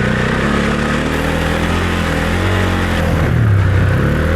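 Husqvarna Svartpilen 401's single-cylinder engine running under the rider's throttle, its pitch falling and rising again around the middle as the revs change.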